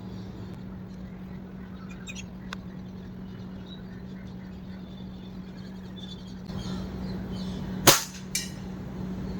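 An air rifle fires once, a single sharp crack near the end, followed about half a second later by a second, fainter sharp crack. Under it runs a steady low hum with a few faint ticks.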